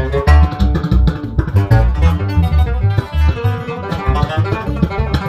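Instrumental break of a fast country song: guitar picking a quick melody over steady low bass notes.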